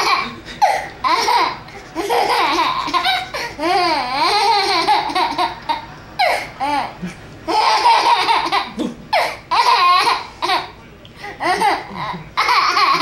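An eight-month-old baby laughing in repeated bursts, mixed with an adult's silly vocal noises with wavering, sliding pitch.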